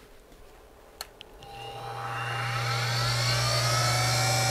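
A click about a second in, then a Central Machinery mini mill's spindle motor starts and spins up with a rising whine before settling into a steady hum. It is running on a belt-pulley drive with its transmission gears removed, which makes it run quietly.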